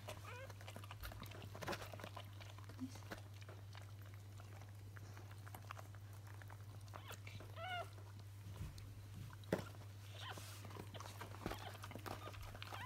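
Faint sounds of a mother dog with her newborn Sproodle puppies: scattered soft clicks and rustles, and about halfway through a newborn puppy's short, high squeak, over a steady low hum.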